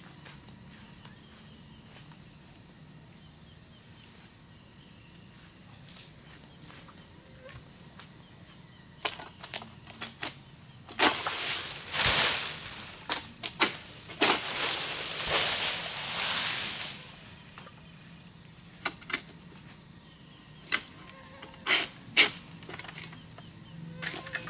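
A steady, high insect drone. Midway comes a few seconds of loud rustling and scraping with sharp knocks, as an egrek (long-poled harvesting sickle) is raised and worked among the oil palm fronds. A few single knocks follow near the end.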